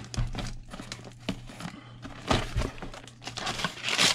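Cardboard box flaps and packaging being handled and rustled, with scattered light knocks. A louder burst of paper crinkling comes near the end as a receipt is pulled out.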